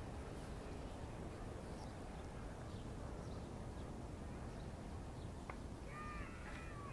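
Steady low hum of outdoor city-park ambience with faint, short, high chirps scattered through it. A single click comes about five and a half seconds in, and passers-by's voices start near the end.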